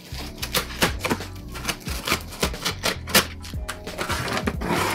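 Scissors snipping and sawing through the tape and cardboard of a sealed shipping box: a quick, irregular run of crisp clicks, with a short scraping burst near the end. Background music with a steady bass plays underneath.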